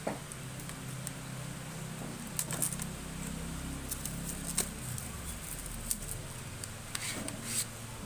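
The plastic packaging of a new SSD being pried open with a tool and the drive lifted from its plastic tray: scattered sharp plastic clicks and crackles, a cluster about two and a half seconds in and another near the end, over a steady low hum.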